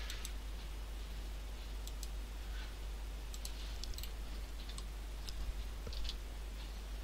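Computer mouse buttons and keyboard keys clicking at irregular intervals, light sharp clicks, over a steady low hum.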